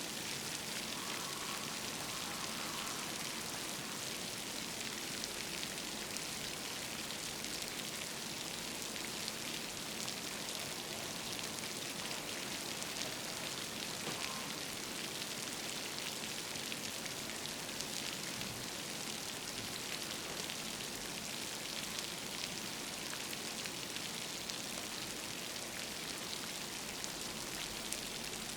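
Steady rain falling on a surface, a dense, even hiss with fine scattered drop patter.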